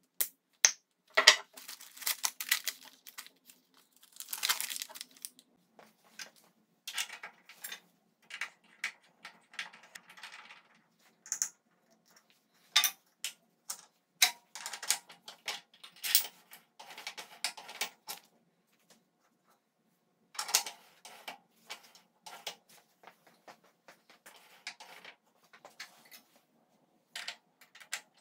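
Handling noise from fitting a Shopsmith quill handle, played back sped up: a plastic bag crinkling and many short clicks and clinks of small metal parts being unpacked, set down and fitted to the headstock.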